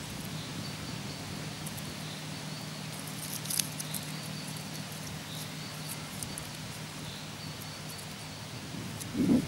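Small campfire of split kindling being tended by hand: light clicks and crackles of the dry wood, one sharper click about three and a half seconds in, over a steady hiss. A short low rustle of handling comes near the end.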